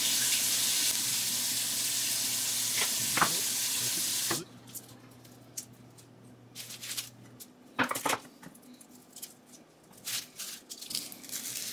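A steady hiss with a low hum that cuts off suddenly about four seconds in, then the soft clicks and rustles of garlic cloves being broken off the head and peeled by hand on a bamboo cutting board, with a couple of sharper knocks as the cloves are crushed under the flat of a cleaver.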